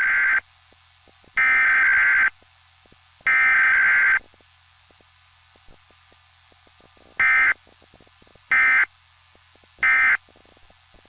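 Emergency Alert System digital header tones: three harsh, buzzing data bursts of about a second each, then a pause, then three short bursts that mark the end of the message.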